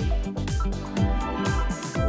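Background music: an electronic track with a steady beat of deep kick-drum hits about twice a second, crisp percussion between them and a held synth melody.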